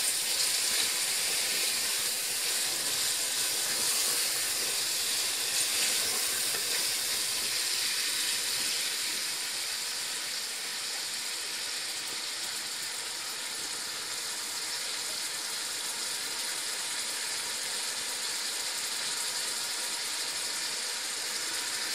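Mutton pieces frying in hot oil with onions and garlic in an aluminium pot: a steady sizzle that eases a little after about eight seconds.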